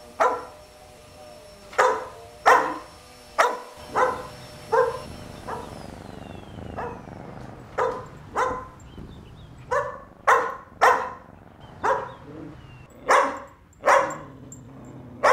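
A large dog barking in single sharp barks, about fifteen in all, irregularly spaced, with a pause of about two seconds near the middle.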